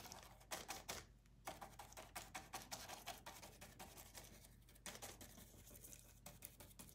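Faint, quick, irregular soft taps of a small sponge applicator dabbing acrylic paint through a stencil held against a painted wooden bench.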